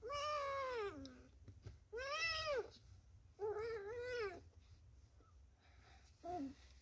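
Tabby kitten meowing: three long, drawn-out meows in the first four and a half seconds, the first falling in pitch and the next two rising and falling, then one short meow near the end.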